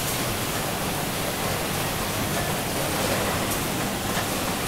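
Steady, even noise of snack-factory machinery running, including a rotating flavouring drum tumbling freshly flavoured cheese puffs, which spill from its mouth into a plastic bin. A few faint clicks sound over it.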